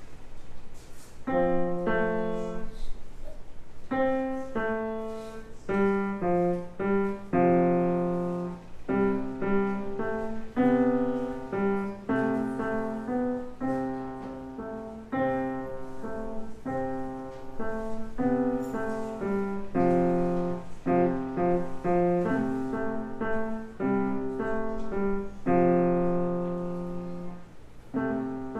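Solo piano playing a simple piece of short notes and chords, starting about a second in.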